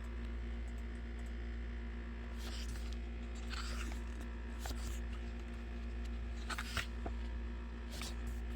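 A handful of short rustles from paper and card being handled, over a steady low hum.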